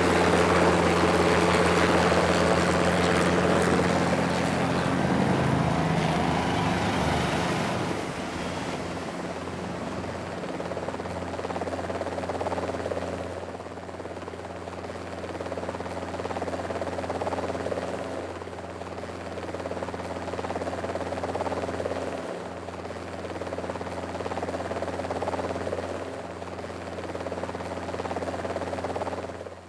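Helicopter noise: a steady, even hum of rotors and turbine engine. A louder rushing wash sits on top for the first several seconds and fades out about eight seconds in.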